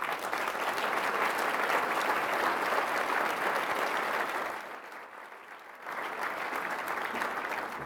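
Audience applauding. The applause dips about five seconds in, picks up again a second later and tails off near the end.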